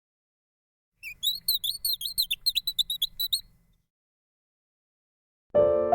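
A rapid run of short, high chirps, about seven a second, lasting under three seconds. Piano music starts near the end.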